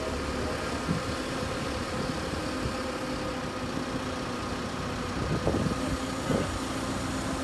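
Heavy-equipment engine running steadily with an even mechanical hum. There are a couple of light knocks about two-thirds of the way through.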